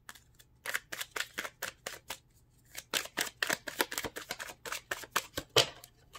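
A deck of cards being shuffled by hand: a quick run of crisp card flicks and slaps, several a second, with a short pause about two and a half seconds in.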